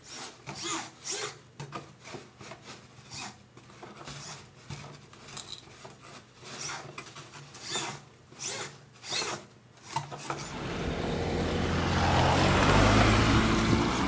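Irregular short scraping and rubbing sounds, several a second, from a Depron foam model airplane being handled and turned close to the microphone. About ten seconds in they give way to a steady rushing noise that grows louder.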